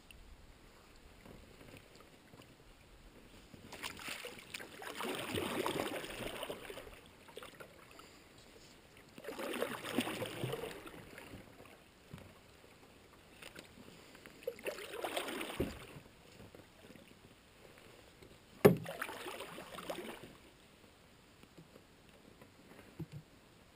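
Double-bladed paddle strokes in river water beside a canoe: four swishing splashes a few seconds apart, with one sharp knock of the paddle about three quarters of the way through.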